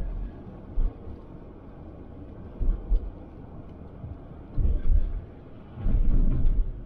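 Car driving on a snowy, slushy street: a steady low road rumble with several low bumps from the tyres, the heaviest near five seconds and six seconds in, as the car crosses railroad tracks.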